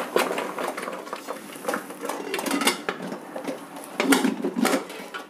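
Metal steamer pot clinking and clattering as the perforated steamer plate of momos is set in and the lid is put on, with a short run of louder clatters about four seconds in.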